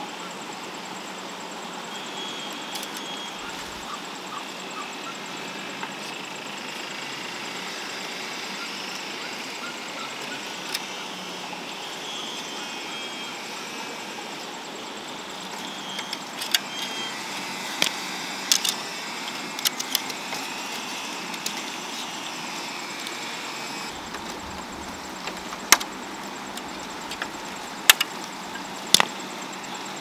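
Pliers twisting and snipping tie wire on a green-bamboo fence: sharp metallic clicks and snaps, scattered from about halfway through, over a steady background hiss.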